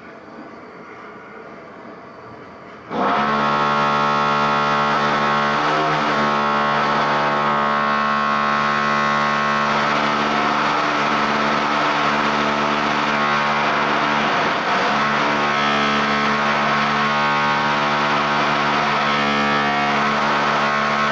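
Background music with held chords starts suddenly about three seconds in and runs loud and steady, changing chord every few seconds. Before it there is a quieter steady noise.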